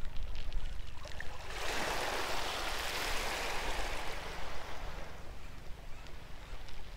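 A small wave washing up the shingle beach: a hiss that swells about a second and a half in and fades a few seconds later, over a steady low rumble.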